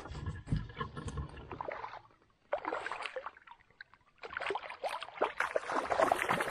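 Water splashing in two bursts as a hooked rainbow trout thrashes at the surface beside a canoe, the second burst longer and louder. Low thumps come first, over the opening two seconds.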